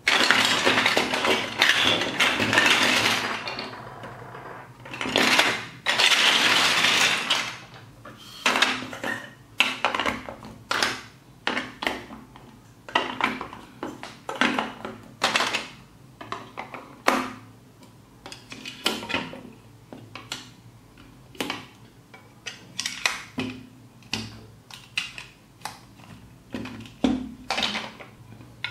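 Large plastic building blocks clattering as hands rummage through a pile of them, twice in the first several seconds, then a long series of sharp clicks and knocks as the bricks are pressed and snapped together one at a time.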